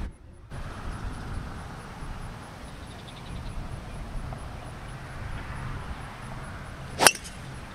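Quiet outdoor background, then a single sharp crack about seven seconds in as a driver strikes a golf ball off the tee.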